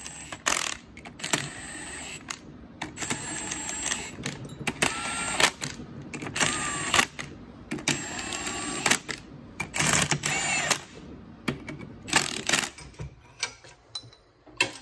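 Milwaukee M18 cordless impact wrench driving the ring gear bolts onto a differential carrier in a string of short hammering bursts, one bolt after another. Its motor whine rises and falls with each pull of the trigger.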